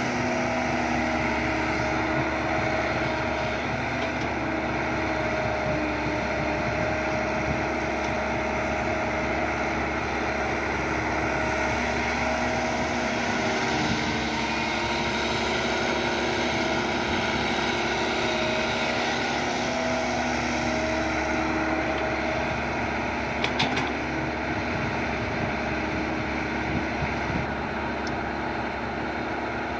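Kobelco SK120 Mark 3 excavator's diesel engine running steadily under working load, its pitch shifting slightly as the hydraulics work. A few sharp metallic knocks come about two-thirds of the way through.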